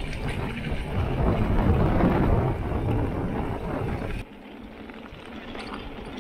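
Wind buffeting the microphone and mountain bike tyres rolling over a gravel road, loudest about two seconds in. A little after four seconds it drops suddenly to a quieter rumble with a few light ticks.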